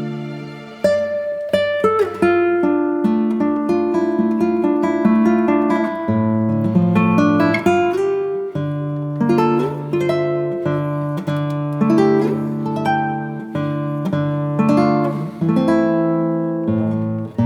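Background music: an acoustic guitar picking a melody over chords, with a new passage of plucked notes starting about a second in.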